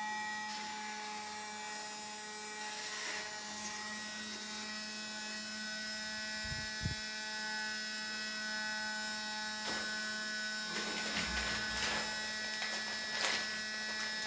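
Homemade mini fan's small 6-volt DC motor running steadily, a continuous electric hum with a whir from its plastic blade. A few light rustles and clicks come near the end.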